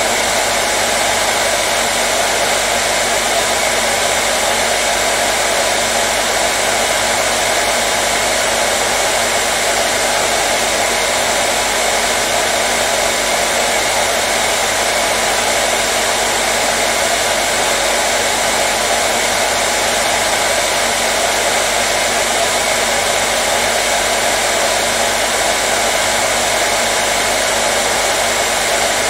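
Hair dryer running steadily, a constant loud rush of blown air with a faint motor hum, unchanging throughout.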